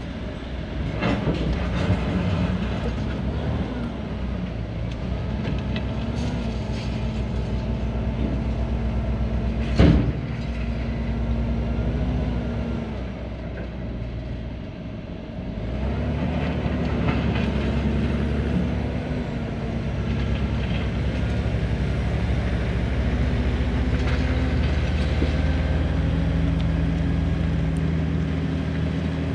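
A heavy diesel engine running under changing load, its pitch stepping up and down, with one sharp knock about ten seconds in.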